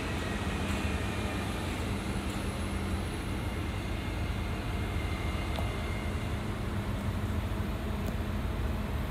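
SJ X40 double-deck electric train pulling slowly out of the station: a steady low rumble and hum, with a steady tone for the first three seconds or so.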